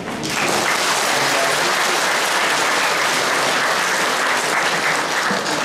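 Congregation applauding: dense, steady clapping that starts a moment in and tails off near the end.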